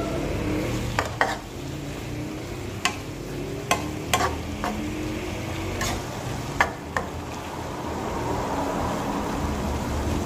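Green beans and chicken sizzling in a non-stick wok as they are stir-fried, with a metal spatula knocking and scraping against the pan in about nine irregular clicks.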